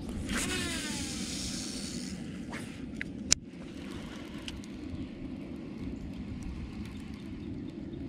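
Small boat's electric trolling motor running with a steady hum as the boat moves across the pond. There is a brief falling whirr in the first second and a single sharp click a little over three seconds in.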